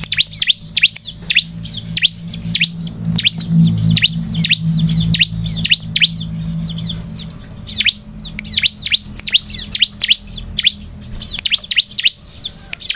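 Bar-winged prinia (ciblek) calling: fast runs of sharp, down-sweeping chirps, several a second, broken by short pauses. A low steady hum runs underneath for the first half.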